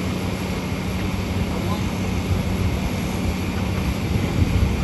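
Diesel engine of heavy construction machinery running steadily, a low, even hum over rumbling noise.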